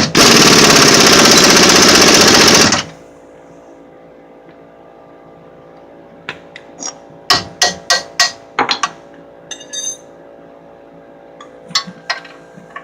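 Impact wrench running in one loud burst of about three seconds, tightening a suspension bolt on the control arm. It is followed by scattered light metallic clinks and knocks of tools and parts.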